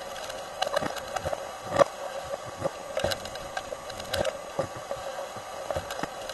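Hurricane-force wind-driven rain lashing a vehicle's windshield, heard from inside the vehicle: a steady rushing noise with rapid, irregular pattering and ticking of drops and small debris striking the glass. One sharper hit comes about two seconds in.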